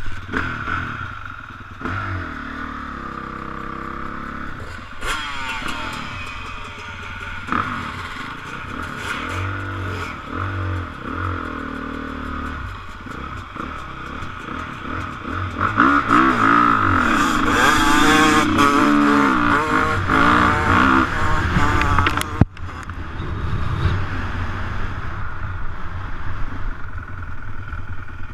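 Dirt bike engine running and revving as it is ridden, the pitch rising and falling with the throttle. It is loudest and revs hardest a little past halfway, then breaks off suddenly before running on.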